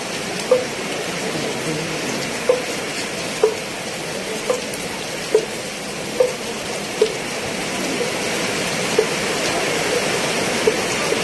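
Heavy rain falling as a steady hiss, with a short pitched tap repeating about once a second over it.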